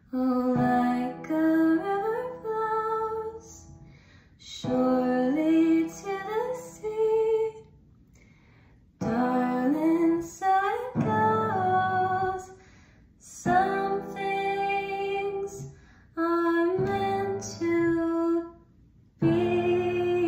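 A woman singing a slow ballad in short phrases with brief pauses between, over sustained chords played on an electronic keyboard.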